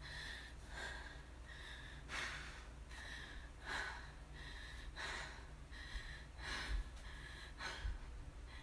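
A woman breathing hard and evenly from the effort of holding a side plank, one short breath in or out about every second.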